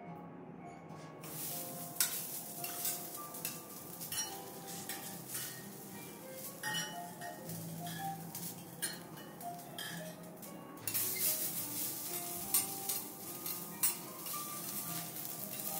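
Bean sprouts and pea shoots sizzling on a hot teppanyaki griddle, with a metal spatula and knife clicking and scraping on the steel plate. The sizzle starts about a second in and grows louder near the end.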